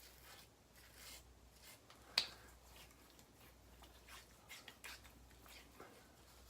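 Faint rustling and handling noises, with one sharp click about two seconds in.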